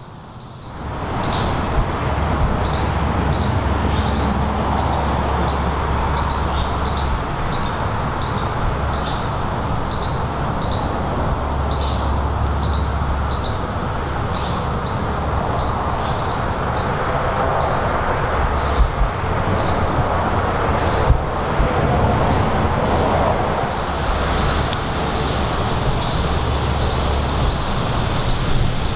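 Insects chirping steadily in rapid, even pulses. About a second in, a loud, steady rushing rumble comes in underneath them.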